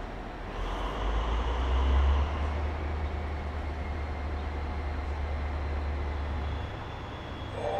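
SNCF BB 67400-class diesel locomotive standing at the platform with its diesel engine running: a deep steady rumble that grows louder about a second in, holds, then eases back shortly before the end.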